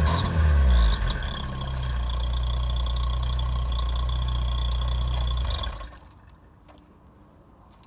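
Car engine dropping from a rev to a steady idle, with a faint high whistle from an exhaust whistle fitted inside the tailpipe's last muffler. The sound cuts off suddenly about six seconds in.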